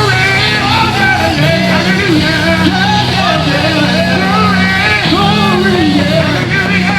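Loud live gospel music: a band playing with voices singing, the melody lines bending and sliding over a steady low accompaniment.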